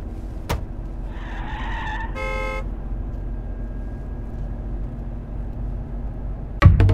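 Steady low rumble of a car driving, heard from inside the cabin. A brief squeal about a second in is followed by a short beep, and music comes in near the end.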